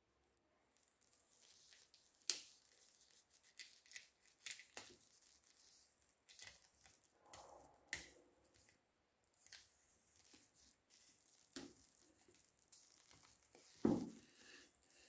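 Clear plastic shrink-wrap being picked at and peeled off a hardcover book: scattered sharp crackles and rustles of the film, with a louder knock of the book being handled about fourteen seconds in.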